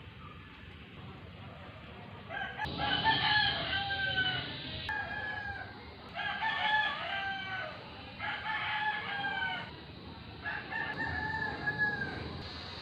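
A person imitating a rooster, giving about five crowing calls in a row, each a drawn-out pitched cry that falls at the end.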